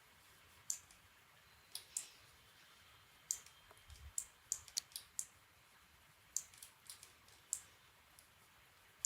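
Irregular, sharp clicks from a computer mouse and keyboard, some spaced out and some in quick runs, over a faint steady background hiss.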